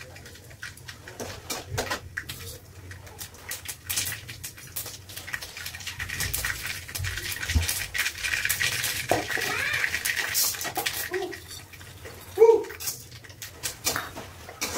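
Clinks, knocks and scrapes of a metal spoon and utensils against a steel kadai, with a stretch of hissing noise about halfway through.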